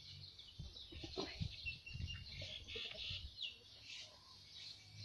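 Birds chirping again and again, short, mostly falling calls, fairly faint, over a low uneven rumble with a few soft knocks.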